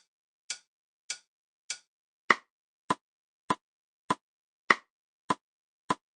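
Metronome ticking steadily at 100 beats per minute, a little under two clicks a second. The first three clicks are thinner and quieter. From about two seconds in, every fourth click is louder and fuller, an accented downbeat marking a four-beat bar.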